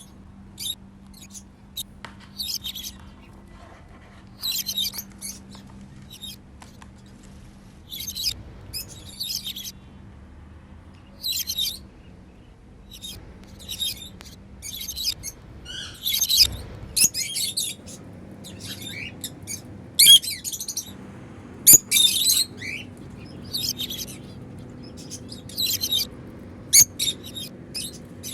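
African lovebirds chirping in short clusters of rapid, high-pitched chirps that come every second or two and overlap.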